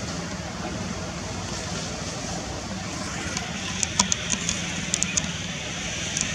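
Steady outdoor background noise with a faint low hum. From about four seconds in come a scatter of short, high chirps or clicks.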